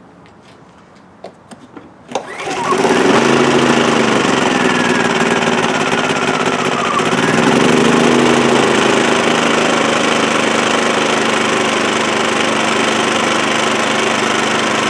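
WEN inverter generator's small gasoline engine starting about two seconds in, after a few light clicks, then running steadily, its pitch wandering for a few seconds before it settles. This is its first start after a high-altitude carburetor conversion kit was fitted.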